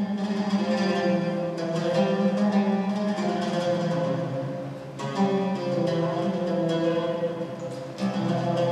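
Oud playing a melody of plucked notes, with fresh strong attacks about five and eight seconds in.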